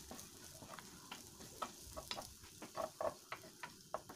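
Wooden spoon scraping and knocking irregularly on a nonstick grill pan as strips of fried burger steak are stirred and pushed aside, with a light sizzle from the meat frying in its own fat.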